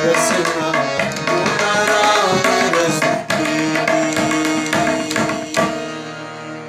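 A woman singing a Hindi devotional bhajan to tabla accompaniment. About five and a half seconds in, the tabla stops on a last stroke and a low held note carries on, fading.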